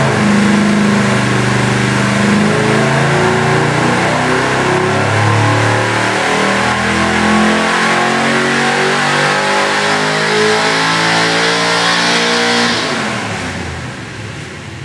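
A Gen II LT1 small-block V8 (357 cubic inches, 350 bored .040 over, Holley 750 carburettor) makes a wide-open-throttle pull on an engine dynamometer, loud and steady at high rpm, on a run that makes about 500 horsepower. Near the end the throttle closes and the engine drops back toward idle.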